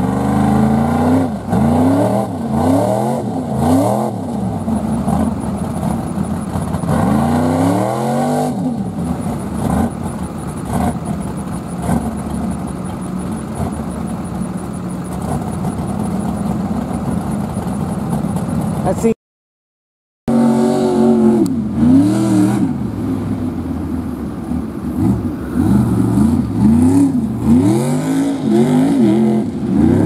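Big-horsepower lifted Jeep's engine revving hard again and again, its pitch rising and falling in repeated sweeps, with steadier running in the middle stretch. The sound drops out completely for about a second a little past halfway.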